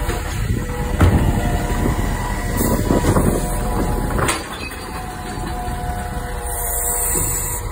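Iveco Stralis side-loader garbage truck's automated arm lifting a recycling bin and tipping it into the hopper, the diesel engine and hydraulics running under load. There is a knock about a second in, a rattling clatter as the recyclables drop in about three seconds in with a sharp strike just after, and a hiss near the end.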